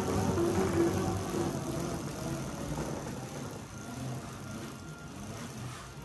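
Bicycle tyres spinning on Tacx rollers: a steady drone that fades over a few seconds as the pedalling stops and the rollers spin down.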